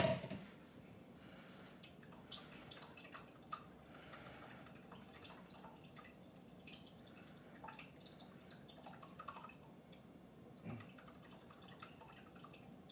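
Chicken stock dripping in a slow trickle from a tilted carton into a saucepan of liquid: scattered faint drips. One sharp knock at the very start.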